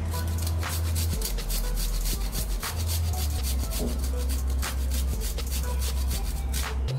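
Fresh ginger being grated on a small handheld grater, in quick, irregular back-and-forth scraping strokes.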